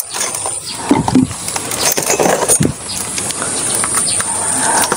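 Clatter and rustle of kitchen things being handled and set down on a table, with many small knocks, over a steady high-pitched whine.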